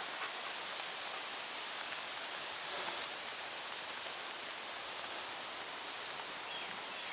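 Steady, even hiss of stormy outdoor weather, wind and rain noise, with no distinct events.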